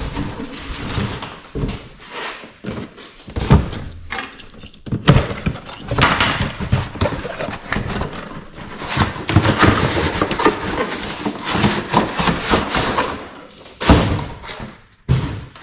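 Irregular knocks, clunks and scraping of plastic electric cooling fan housings being handled and fitted against a radiator.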